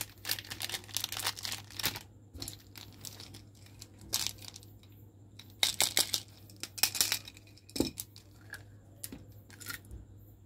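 Plastic candy wrappers crinkling and rustling as hands handle packaged candies, in several irregular bursts, with a few light clicks near the end as small candies are tipped out of a plastic tube into a palm.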